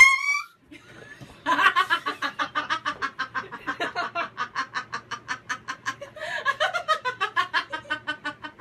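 A short sharp shriek right at the start, then rapid high-pitched cackling laughter from about a second and a half in, an even run of about five pulses a second.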